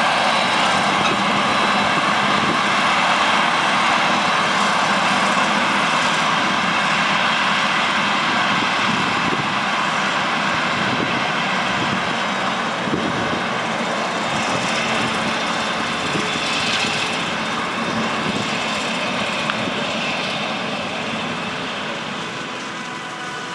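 Heavy diesel farm machinery running steadily. A tractor pulling a silage dumper trailer passes close, and a Claas Jaguar 970 self-propelled forage harvester chops maize and blows it into the trailer. The noise slowly fades toward the end.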